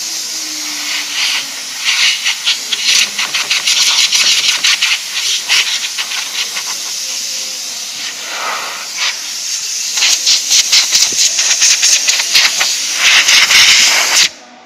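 Compressed-air blow gun hissing in many short, rapid blasts as MDF dust is blown off a CNC router bed, cutting off sharply near the end. Underneath, during the first two seconds, the router spindle winds down with a falling hum.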